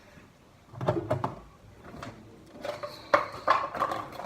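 A small plastic pot being handled, with short knocks and clatter: a cluster about a second in and more near the end.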